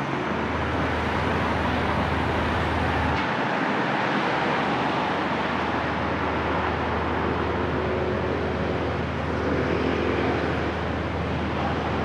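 Busy urban road traffic: a steady wash of passing cars and engines, measured at about 85 decibels at the roadside.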